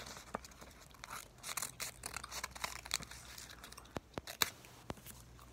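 Scissors snipping paper, with the sheet rustling and crinkling as it is handled: a scattering of short, sharp snips at irregular intervals.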